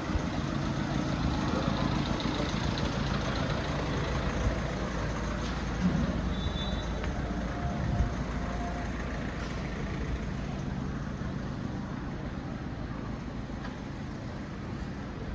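An engine running with a steady low hum that slowly fades away, with two short knocks about six and eight seconds in.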